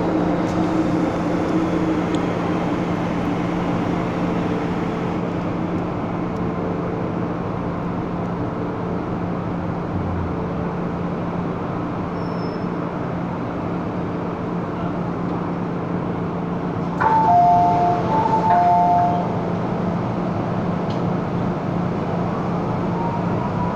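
Steady hum and rumble of an MTR M-Train running, heard inside the passenger car. About 17 seconds in, a two-tone chime sounds twice as the train stops and the doors open.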